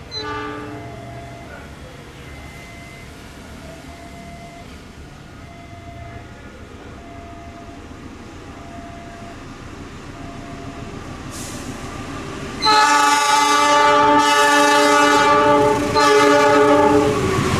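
Train approaching with a slowly building rumble, its diesel locomotive horn blowing twice near the end: a loud long blast of about three seconds, a short break, then a second blast of about a second. A short horn toot sounds right at the start.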